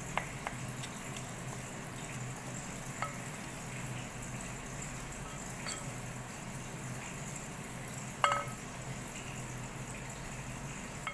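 Wooden spoon stirring a moist shrimp-and-chive filling in a glass bowl. The spoon clinks against the glass now and then, about five times, and the loudest knock comes about eight seconds in, over a steady low hum.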